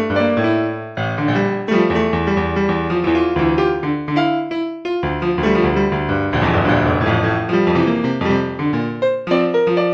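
Piano music: a steady flow of melody notes over low bass notes.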